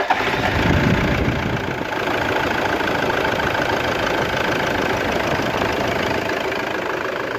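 Toyota Prado's 1KD-FTV four-cylinder turbodiesel catching after cranking, rising briefly in the first second, then settling into a steady idle.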